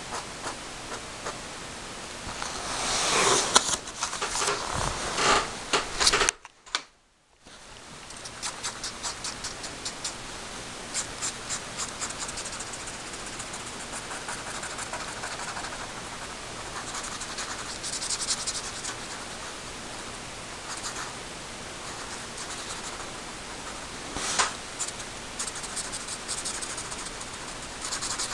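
Pen scratching on paper in quick, repeated hatching strokes, over a steady hiss. A louder stretch of rubbing and scraping comes a few seconds in, followed by a brief drop to near silence.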